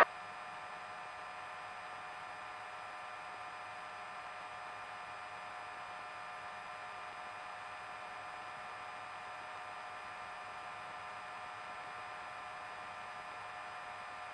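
Faint steady electrical hum with hiss, a set of unchanging tones that does not vary.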